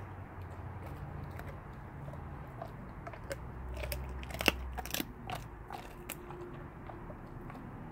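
Blue Bay Shepherd chewing a raw turkey carcass: scattered wet crunches and cracks of bone and meat between its teeth. A cluster of sharper cracks comes near the middle, the loudest about halfway through.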